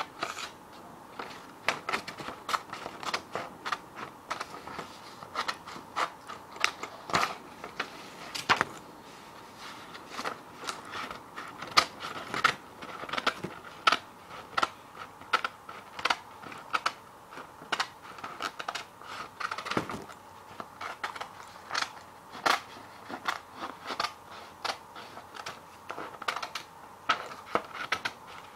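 Scissors cutting paper: a steady run of quick, crisp snips, irregular and about two to three a second, with faint paper noise between them.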